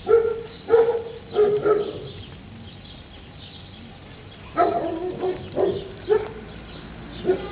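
A dog barking in short barks: three in quick succession, a pause of a few seconds, then a run of about four more and a last one near the end.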